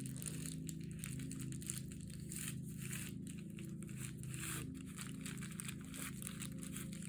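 Crinkling and rustling of a recycled plastic mailer envelope being handled, pulled taut and pressed down as its edges are glued, in many short scratchy strokes over a steady low hum.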